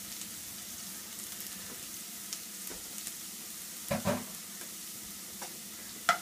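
Chopped garlic sizzling in hot olive oil in a nonstick frying pan: a steady hiss with small scattered crackles. A couple of knocks about four seconds in, and a sharp click near the end as a spatula goes into the pan.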